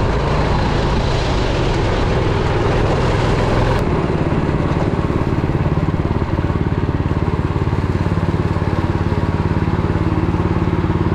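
Go-kart engine running at speed, heard from onboard the kart. About four seconds in it changes abruptly to kart engines idling in the pit lane with an even, rapid chugging pulse.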